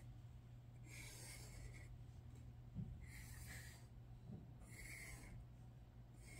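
Faint strokes of a Sharpie felt-tip marker scratching across paper, coming in short runs about every second or two as lines are drawn.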